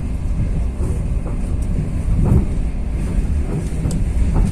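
Steady low rumble inside a moving passenger train carriage as the train pulls away from a station, with a few faint knocks.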